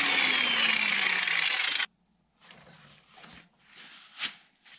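Angle grinder with a flap disc grinding an antique steel adjustable wrench, its pitch slowly falling, then stopping abruptly a little under two seconds in. After that come faint rustles and a soft tap of leather work gloves being handled on a wooden workbench.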